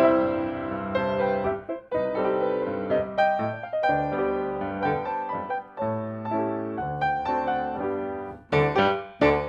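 Grand piano played four hands, two players sharing one keyboard in a duet, with full chords and short breaks between phrases.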